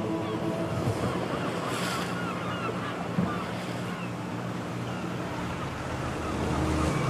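Sea surf and wind, with a small motorboat's engine running low and steady underneath, and faint high chirps scattered through it.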